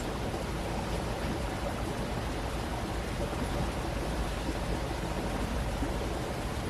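Water of a stream rushing steadily, with a low rumble underneath.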